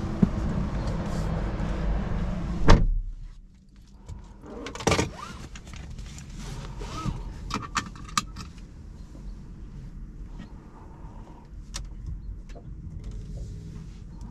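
A car door slams shut about three seconds in, and the steady outside noise drops away at once. Scattered light clicks and handling noises follow in the quiet cabin of the Volvo C40 Recharge.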